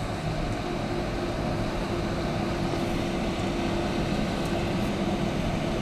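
Cabin noise inside a jet airliner taxiing: a steady hum of the engines and air-conditioning, with a steady low whine setting in about half a second in.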